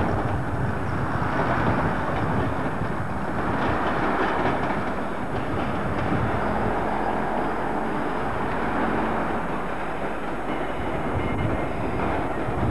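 British Rail multiple-unit passenger train running past on the rails: a steady rumble of wheels on track, with a few clicks from the wheels about four seconds in.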